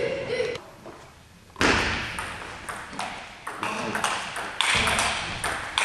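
Table tennis ball being struck by the bats and bouncing on the table in play: a run of sharp clicks roughly every third to half second, starting after a short lull about a second and a half in.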